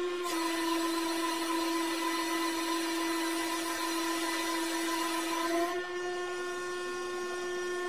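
Hydraulic press pump motor running under load as the ram bears down on a safety boot: a steady hum with a rushing hiss over it. The hiss drops away about six seconds in, leaving the hum.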